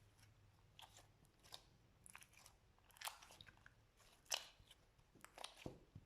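Slime being squeezed and played with, giving faint, irregular clicks and pops, the sharpest about four seconds in.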